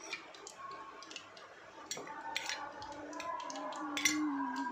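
Batter-coated pav deep-frying in hot oil in an aluminium kadai: a continuous sizzle broken by a few sharp pops and crackles, the loudest about four seconds in. The oil is running a little too hot.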